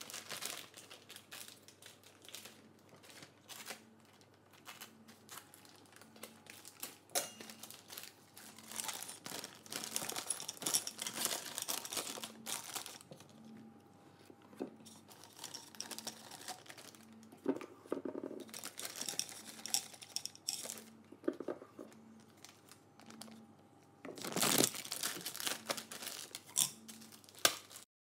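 Plastic piping bag crinkling and rustling in irregular bursts as it is handled and filled with choux pastry dough, with scattered clicks and scrapes of a spatula against a stainless steel bowl.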